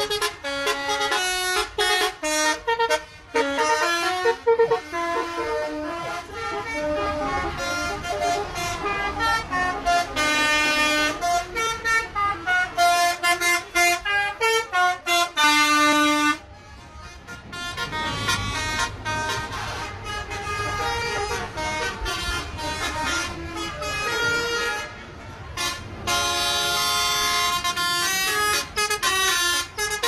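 Tour buses' multi-tone telolet horns playing quick stepped melodies, note after note, which stop suddenly about sixteen seconds in. A low engine rumble and a few longer held horn tones follow.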